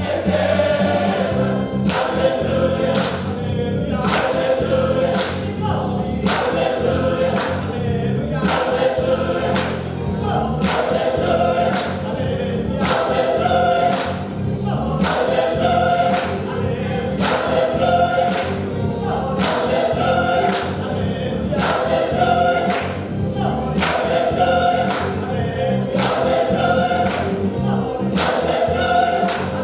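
Mixed choir of women's and men's voices singing a lively gospel song, with the singers clapping their hands on a steady beat that comes in about two seconds in.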